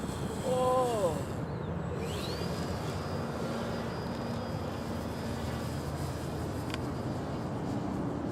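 Wind buffeting the microphone, with a radio-control model airplane's engine droning in the distance. A short falling tone comes about half a second in. A thin high whine rises about two seconds in and holds for several seconds.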